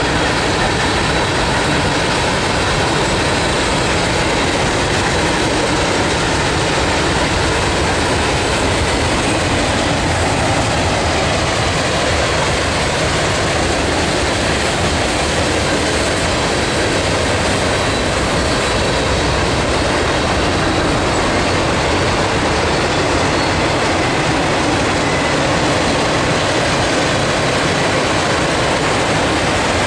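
Norfolk Southern freight train's cars rolling past at speed: a steady, unbroken rumble of steel wheels on the rails.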